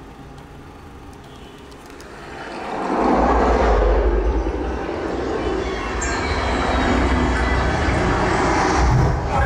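Dolby Atmos demo soundtrack played through a 5.1 amplifier, its speakers and a 10-inch subwoofer. It is low at first; about two and a half seconds in, a loud rushing rumble with deep bass swells up and holds.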